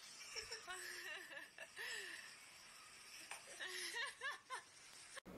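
Quiet human laughter in short bursts: a few near the start and a cluster about four seconds in.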